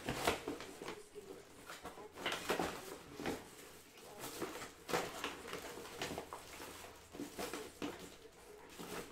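Irregular rustling, tapping and clattering of small objects being handled on a desk, a few soft knocks a second at uneven intervals, over a faint steady hum.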